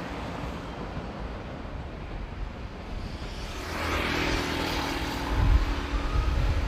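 Railway noise on station tracks: a steady low rumble that swells about four seconds in into a louder rushing sound, with a couple of heavy clunks near the end.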